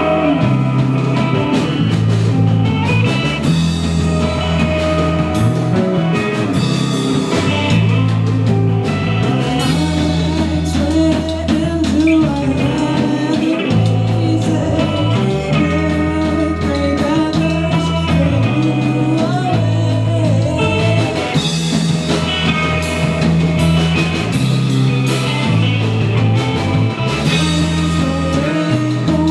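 Live rock band playing a song: electric guitar, bass and drum kit, with singing, and a bass line that repeats every few seconds.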